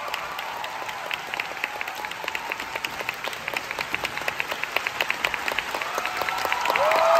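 Large theatre audience applauding, with claps close by standing out in a fast, even rhythm. Near the end, music starts up with held tones, and the sound grows louder.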